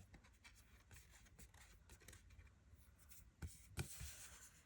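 Faint rustling of oracle cards being handled, with a few light clicks about three and a half seconds in.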